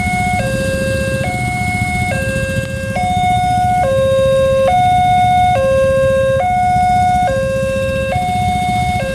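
Railway level crossing warning siren sounding a two-tone hi-lo alternation, each tone held a little under a second, over a steady low rumble.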